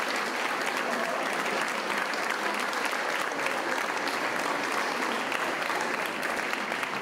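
Audience applauding: many hands clapping steadily and fairly loudly.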